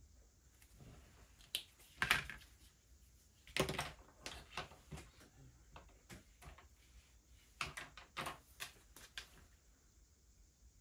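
A series of irregular sharp clicks and taps in clusters, starting about a second and a half in, loudest at about two seconds, and dying away shortly before the end.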